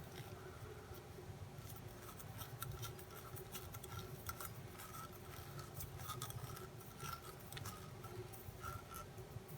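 Faint scattered clicks and light handling noises of small plastic model-rocket parts being worked by hand, over a low steady hum.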